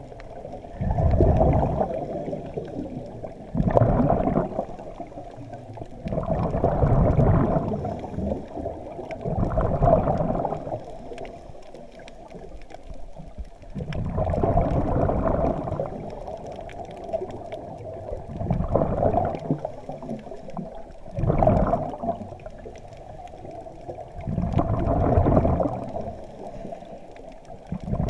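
Scuba diver breathing through a regulator underwater: a gurgling rush of exhaled bubbles about every three to four seconds, around eight breaths in all, over a steady underwater background.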